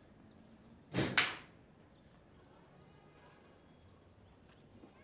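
A pair of aluminium crutches clattering down twice in quick succession about a second in, two sharp metallic clacks, the second the louder. Faint room tone otherwise.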